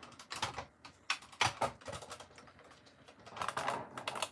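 Hard plastic clicking and rattling as a Buzz Lightyear toy's casing and spring-loaded wings are handled and pried at, with a denser run of clicks about three seconds in.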